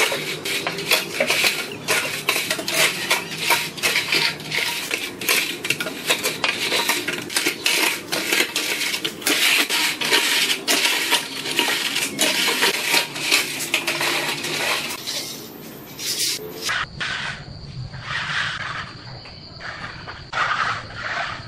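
Aluminium screed bar scraping and grating over wet cement mortar and the edges of the form as it is worked back and forth. A little past halfway it gives way to a steel trowel smoothing wet concrete, quieter, with a faint steady high whine behind it.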